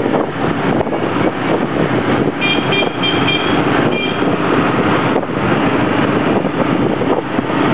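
Steady rush of wind on the microphone mixed with engine and traffic noise from riding on a motorbike taxi, with a few short horn beeps about two and a half to four seconds in.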